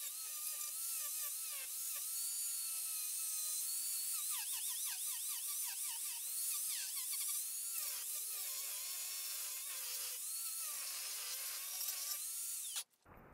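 Angle grinder with a wood-carving disc grinding out the inside of a wooden bowl, sped up, so it gives a high whine that wavers and swoops in pitch as the disc bites and eases off. It cuts off suddenly near the end.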